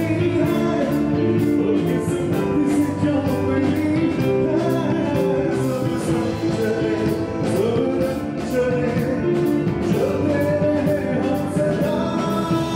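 Live band performing a song: a male singer over electric guitars, keyboard and drums, with a steady beat.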